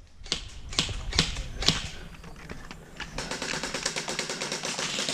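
Airsoft electric rifle firing on full auto, a rapid, even clatter of shots lasting about two seconds, starting about three seconds in. Before it come a few single sharp clicks.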